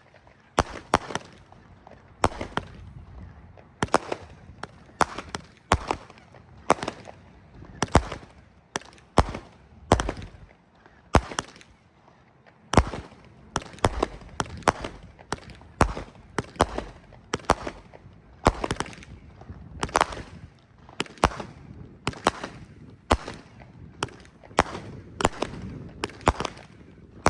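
A 36-shot Link Triad Battle of Colors consumer firework cake firing shot after shot: sharp bangs of launches and breaks, about one or two a second in an uneven, crazy firing pattern.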